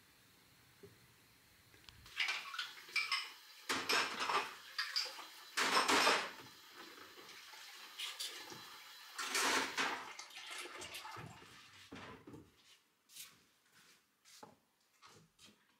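Water running from a kitchen tap in several short bursts while dishes and pots clink and knock in the sink. It starts about two seconds in and thins out to a few light clicks and knocks over the last few seconds.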